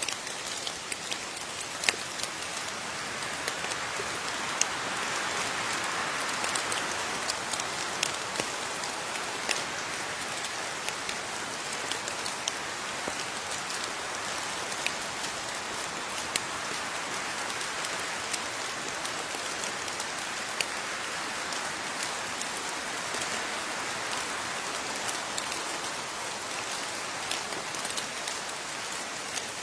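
Steady rain falling, an even hiss with scattered sharper drips of individual drops striking a surface.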